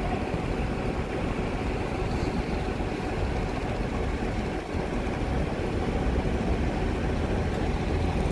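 Heavy truck tractor unit's engine running steadily at low revs while it reverses a loaded grain trailer toward the conveyor.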